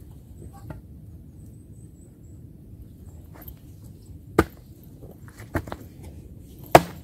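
Axe chopping wood: a few sharp knocks, the first about four seconds in, a quick pair about a second later, and the loudest near the end.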